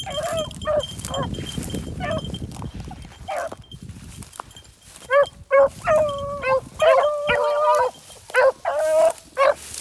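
Beagles baying on a rabbit's trail: scattered yelps at first, then from about five seconds in a run of quick chop-mouth barks and a few long drawn-out bawls, several hounds at once. Rustling of dry grass and crusted snow underfoot in the first few seconds.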